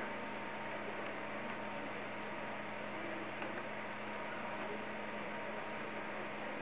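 Steady electrical hum over an even hiss, with no distinct events.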